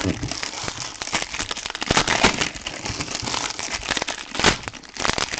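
Trading-card pack wrappers and packaging crinkling and crackling as they are handled, with irregular sharp snaps, a few louder ones about two and four and a half seconds in.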